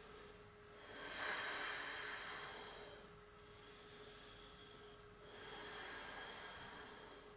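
Shitali (cooling) yogic breathing: two long, soft, hissing inhales drawn through a rolled tongue, about four seconds apart.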